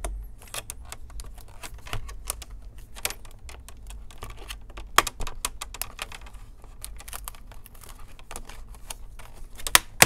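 Irregular plastic clicks and crackles from an HP 14 Chromebook's plastic screen bezel as it is pried and pulled off its very sticky double-sided tape. The sharpest click comes about five seconds in.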